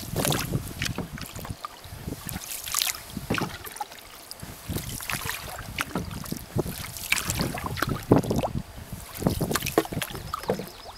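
Canoe paddle strokes: the blade swishing and splashing through calm water, with drips, in an uneven rhythm of roughly one stroke every second or so.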